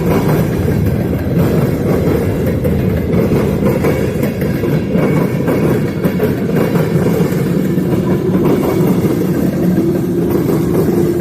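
Freight train with diesel locomotives running, a loud, steady rumble.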